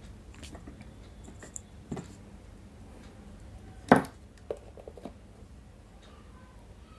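Small clicks and knocks of hands handling wires, components and tools on a workbench while making connections, with one sharper knock about four seconds in and a few light taps after it.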